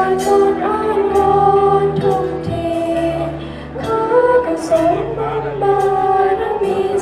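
A song with sung vocals over a steady instrumental accompaniment.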